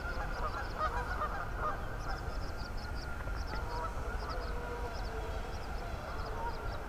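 Geese honking on and off, over a low steady rumble.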